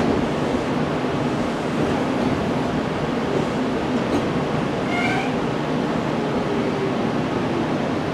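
Steady running rumble of a Meitetsu 6000 series electric train, heard from inside the carriage, with a short, high-pitched tone about five seconds in.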